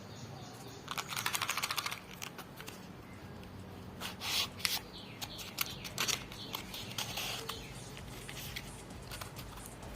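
An empty cardboard matchbox being handled and worked for its sound: a fast run of light clicks about a second in, then scattered clicks and scrapes.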